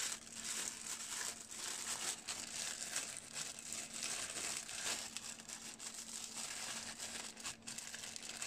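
Plastic packaging bag crinkling and rustling in irregular crackles as a wrapped car-speaker tweeter is unwrapped by hand.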